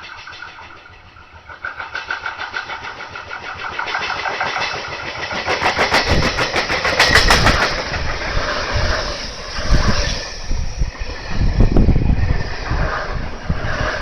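JR E351-series Super Azusa limited express approaching and passing at speed, with a wheel flat pounding out a rapid, even, rhythmic banging loud enough to count as an abnormal noise. The banging grows louder over the first few seconds and gives way to heavy running rumble as the train goes by.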